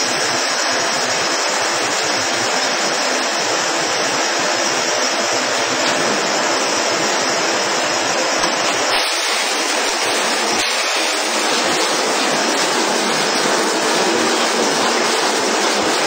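Automatic glass-bottle washing machine running, with a steady rushing hiss of its water jets spraying up into the inverted bottles.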